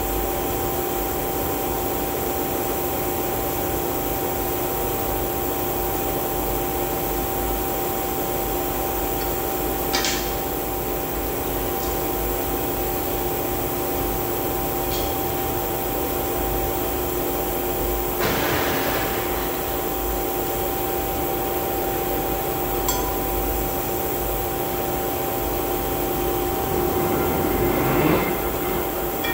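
Steady hum of a large electric motor running, holding two even tones, with a few short metallic clicks and knocks from hand-tool work on it.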